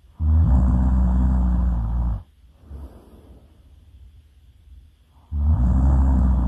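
A person snoring really loud: one long snore of about two seconds, then a second starting near the end, with a quiet gap between them.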